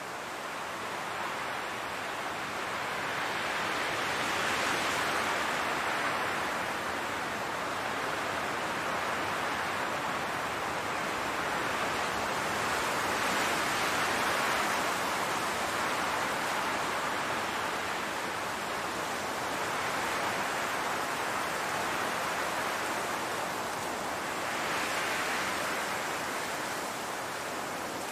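Wind blowing across a grass field: a steady rushing noise that swells and eases in slow gusts, four times over.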